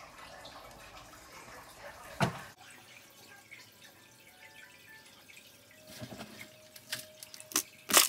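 Handling noise from potting a cutting: hands working a plastic pot and potting soil in an aluminium foil tray, making scattered clicks and rustles. There is a sharp knock about two seconds in, and a cluster of clicks near the end, the last of them the loudest.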